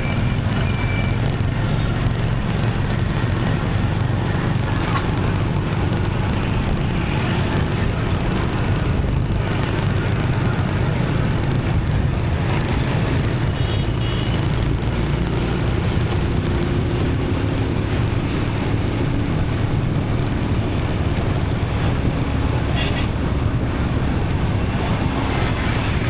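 Steady city traffic heard from a moving motorbike: engine rumble and road noise from surrounding motorbikes and cars, with a short high beep about halfway through.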